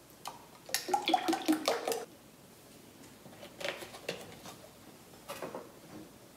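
Heavy whipping cream glugging and splashing as it is poured from a carton into a glass bowl of mango pulp, loudest for about a second near the start. Softer pouring noises follow, and a light knock near the end as the carton is set down on the counter.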